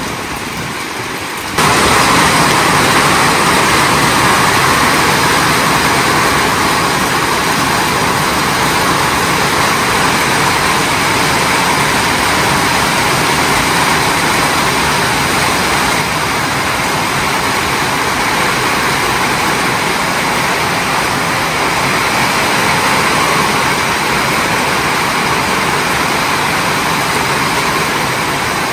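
Heavy tropical rain pouring down with large drops, a steady loud hiss of rain on the ground and surroundings that gets suddenly louder about a second and a half in.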